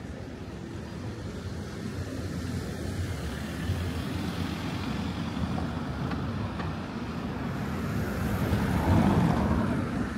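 Car traffic driving past on a town street, a steady tyre and engine noise that builds to its loudest about nine seconds in, then eases off.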